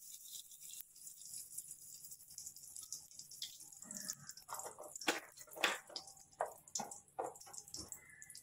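Lumps of homemade ghee melting in a hot pot, crackling and spitting with irregular small pops that grow busier from about three seconds in.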